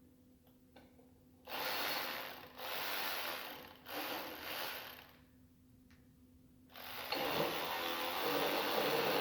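Ratchet wrench clicking in three spells of about a second each as nuts are run off bolts, then a steady mechanical noise starting about seven seconds in.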